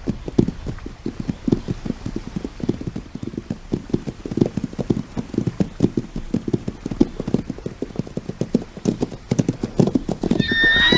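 Hoofbeats of wild horses running: a rapid, uneven run of unshod hoof strikes on the ground. A brief high call comes near the end.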